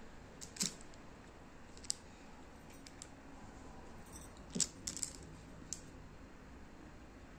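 A few light clicks and taps as a lucky bamboo cutting is handled on crinkled aluminium foil and set into a glass tea-light holder. The loudest come as a quick cluster about four and a half seconds in.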